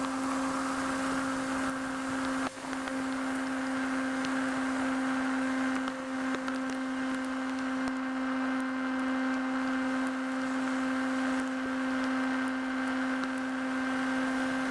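Motor of a radio-controlled model aircraft humming at a steady pitch, picked up by the aircraft's onboard camera, with a brief drop in level about two and a half seconds in.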